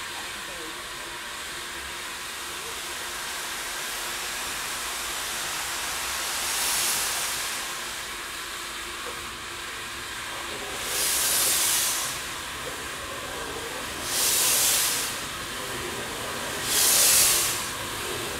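NGG16 Garratt steam locomotive No. 87 starting away: a steady hiss of escaping steam, with four loud chuffs of exhaust that come closer together as the engine gets moving.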